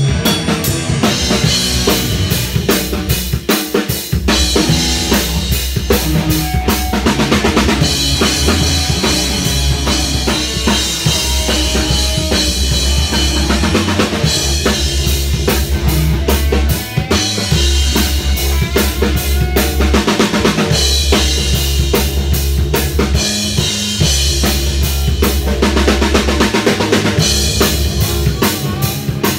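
A rock band playing live in a rehearsal room: a Mapex drum kit's kick, snare and cymbals hit densely under loud amplified electric guitars.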